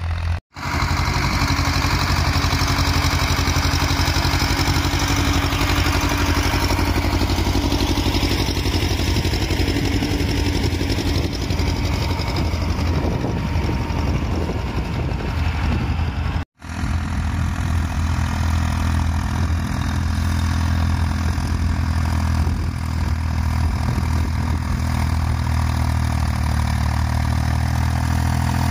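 Tractor diesel engines pulling ploughs under steady load: a Władimirec T-25 working close by, then, after a brief break in the sound about 16 seconds in, an Ursus C-360 3P running steadily as it comes down the furrow.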